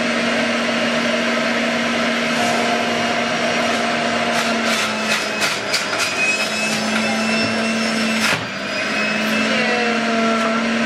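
Breville Ikon centrifugal juicer running under load, its motor giving a steady hum over a loud grinding whir as leafy greens are pushed down the feed chute. A run of sharp clicks and rattles comes about four to six seconds in as pieces hit the spinning cutter disc.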